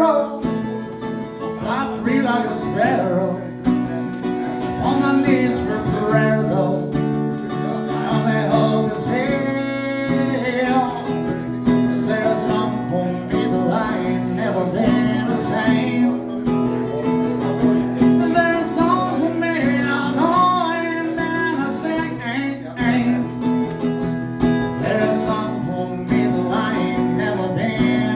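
Live country song on acoustic guitar with a singing voice.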